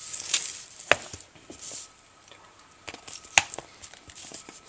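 Plastic food tubs being handled: a rustle, then a few sharp clicks with quieter ticks between them.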